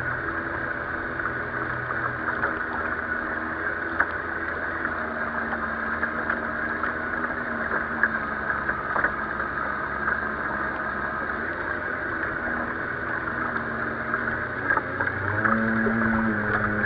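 Water rushing and slapping along the hull of a 1-metre-class RC sailboat as it sails through a light chop, heard from on board, with a steady low hum and a few sharp ticks. The sound grows louder in the last two seconds.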